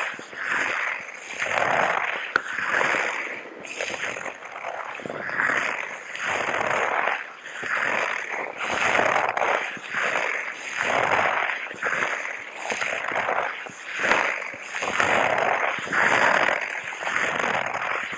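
A person in a hazmat suit breathing heavily close to the microphone: breathy inhales and exhales follow each other about once a second.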